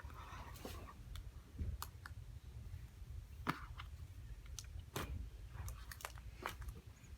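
Sticky slime being worked by hand, making irregular sharp clicks and pops as it is stretched and squeezed.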